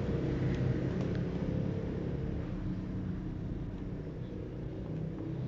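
A steady low rumble, with a couple of faint light clicks about a second in.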